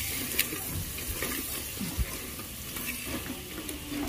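Tomatoes, onions and spices sizzling in a pressure cooker while a spatula stirs them, with a couple of sharp knocks of the spatula against the pot.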